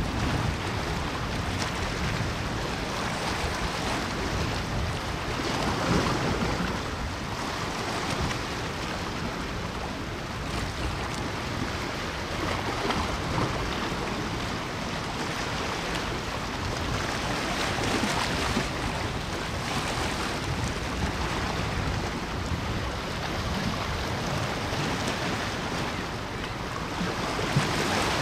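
Waves washing in every several seconds over a steady rush of wind noise on the microphone.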